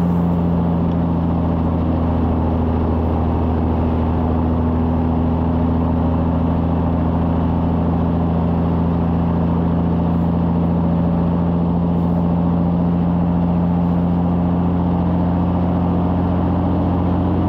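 Cabover semi truck's diesel engine running at a steady highway cruise, one even drone that holds its pitch throughout, mixed with wind and road noise on a camera mounted outside the cab.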